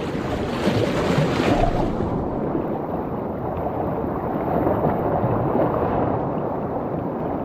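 Steady rushing of wind and sea water on the shore, with a louder, hissier surge about a second in.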